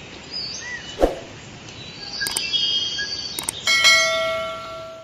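Channel-intro sound effects: forest ambience with a few bird chirps, a sharp hit about a second in and two clicks. A bell chime then rings out near the end and fades away, the subscribe-and-bell notification sound.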